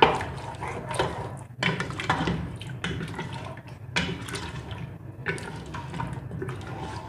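Wooden spoon stirring mutton through thin yogurt gravy in an aluminium pot over high heat: wet sloshing and squelching of the gravy, with irregular scrapes and knocks of the spoon against the pot about once a second.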